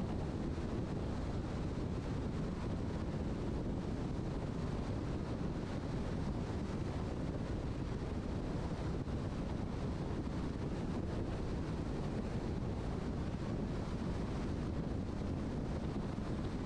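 Steady road and wind noise of a car travelling at highway speed: an even, low rushing with no engine note or other events.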